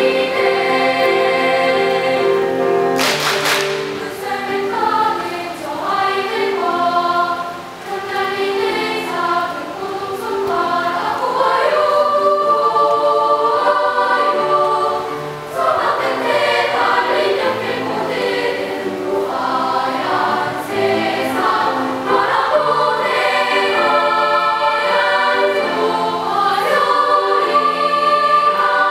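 Children's choir singing in sustained harmony, with one short noisy hit about three seconds in.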